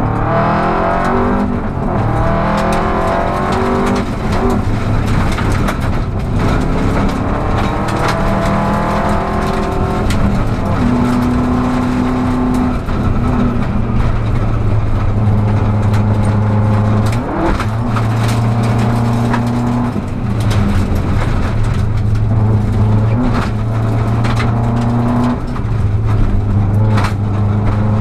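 Rally car engine, heard from inside the cabin, driven hard on a gravel stage: the revs climb and drop again and again through gear changes and corners. Frequent sharp clicks of gravel hitting the car run through it.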